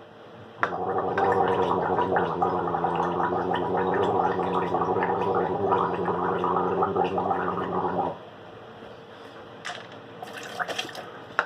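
A man gargling salt water in his throat: one steady, pitched, fluttering gargle lasting about seven seconds, starting just under a second in and cutting off abruptly. A few short faint clicks follow near the end.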